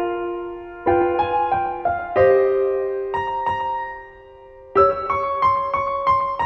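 Solo piano background music: a slow, gentle melody of single struck notes that ring and fade, with a brief pause about four seconds in before the notes resume.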